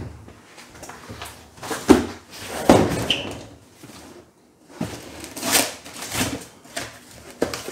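A cardboard shipping box handled on a table: a thump as a phone is set down, then irregular knocks and scraping as the box is moved and its taped flaps are pulled and torn open.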